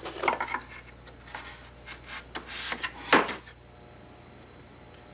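Wood rubbing and scraping against wood in irregular strokes, with a few sharper knocks, the loudest about three seconds in, then stopping; a faint steady hum remains.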